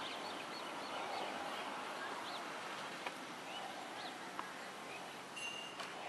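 Outdoor ambience: a steady hiss of background noise with scattered short bird chirps. Near the end a clear, bell-like ringing tone comes in.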